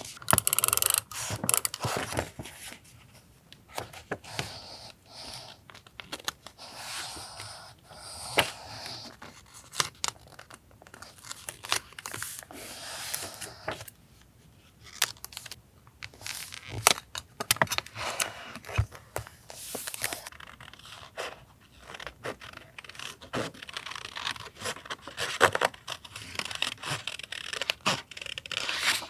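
Close-up paper-craft handling: stickers, masking tape and paper being peeled, torn, rustled and pressed down. It comes as a busy string of short crisp rips, crinkles and taps, with a few brief lulls.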